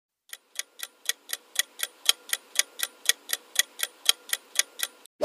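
Countdown-timer ticking sound effect: clock-like ticks about four a second, growing louder over the first second, then stopping just before a single sharp hit at the very end.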